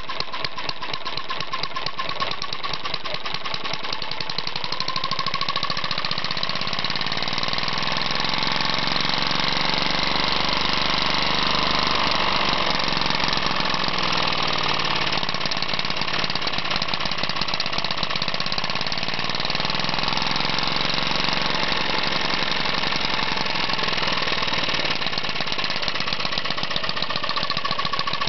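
Webster single-cylinder four-stroke model engine with air-cooled cylinder (24.7 mm bore, 31 mm stroke) running with rapid, even firing. Its speed rises, falls and rises again as the carburettor at the cylinder head is adjusted by hand.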